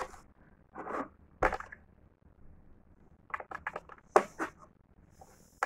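Small kitchen knife cutting through an orange's peel and flesh: a few scattered crunchy slicing strokes and sharp clicks, the loudest click about four seconds in.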